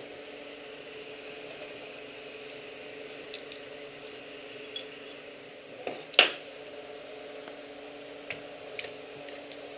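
Light clinks and clicks of metal and glass as beer-bottling gear is handled: bottle caps, a steel funnel, glass bottles and a bench capper. One sharp, ringing clink about six seconds in is the loudest, with a few smaller clicks around it, over a steady low hum.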